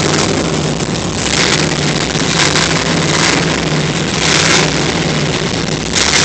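Former drag-race Chevelle's engine idling, heard from inside the car, loud, with a swell in its sound about once a second.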